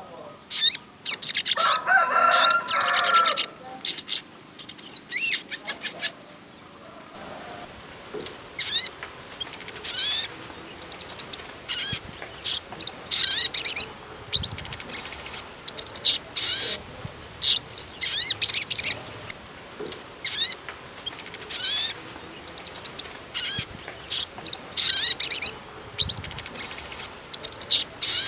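Sogon songbird singing vigorously in quick phrases of high, sliding chirps and trills separated by short pauses. Near the start comes a louder, fuller phrase with lower notes.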